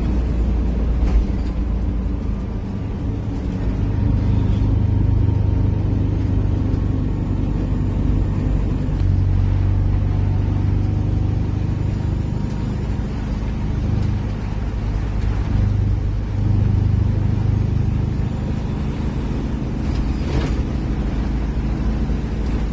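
Detroit Diesel engine of a Flxible Metro transit bus, running without an exhaust tip and heard inside the passenger cabin, a steady deep rumble that swells and eases several times. A couple of sharp knocks stand out, about a second in and near the end.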